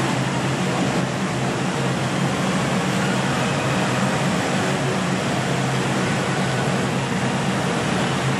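Steady noise of city street traffic, an even rushing sound with a low rumble underneath and no single vehicle standing out.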